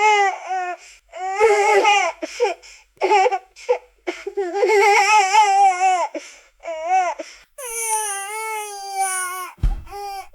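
Infant crying: a run of wailing cries, each a second or two long with a wavering pitch, broken by short breaths. A brief low thump near the end.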